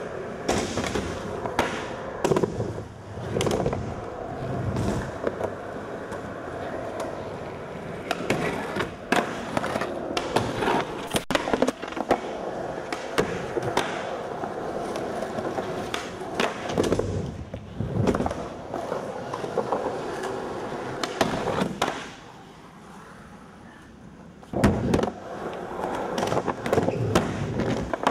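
Skateboards rolling on a smooth concrete floor, with repeated sharp clacks of boards striking the floor, ramps and ledges. The sound drops quieter for a couple of seconds about three-quarters of the way through.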